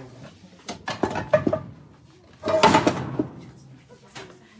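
Metal pans and pots clattering and knocking as they are handled on a shop shelf, in two bursts about a second and about two and a half seconds in.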